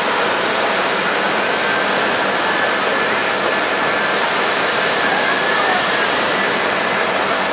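Jet engines of a taxiing Boeing 747-400D at low power: a steady rushing noise with faint, constant high-pitched whine tones.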